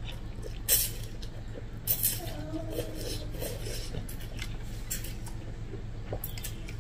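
A person slurping vermicelli noodles from a bowl of soup, with two loud slurps in the first two seconds, and light clinks of a fork and spoon against the ceramic bowl.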